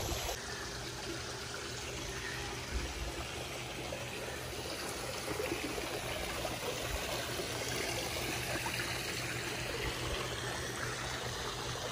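Steady trickling of running water in a backyard swimming pool.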